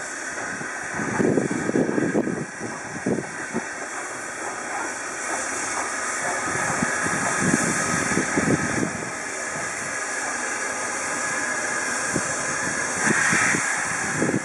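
Steam locomotive No. 825, a Southern S15 4-6-0, working slowly toward the listener with a train. It gives uneven exhaust beats, and a steady steam hiss grows stronger from about five seconds in.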